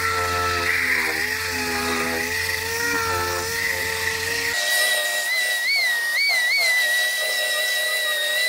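A small disc sander runs continuously, its pitch dipping as it bears on the welded quarter-panel seam. About halfway through it gives way to the high, steady whine of a narrow finger belt sander grinding the weld seam. The whine rises briefly a few times as the trigger is eased.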